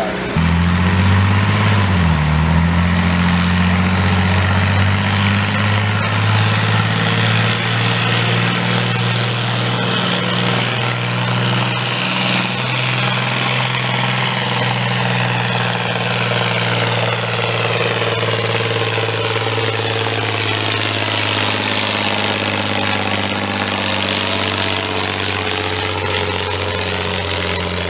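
Farm tractor's diesel engine running hard at steady high revs under heavy load while dragging a weighted pulling sled, with a brief dip in pitch about two seconds in before it picks back up.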